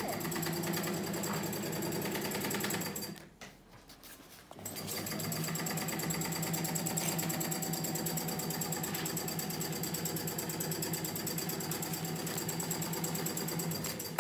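Electric sewing machine running with a fast, even stitching rhythm. It stops for about a second and a half about three seconds in, then runs on steadily. A sharp knock comes right at the end.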